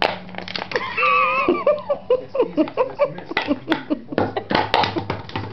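Empty plastic bottle crackling and clicking as an umbrella cockatoo bites and grabs at it, with a dense cluster of clicks about four seconds in. A run of short vocal sounds comes in about a second in.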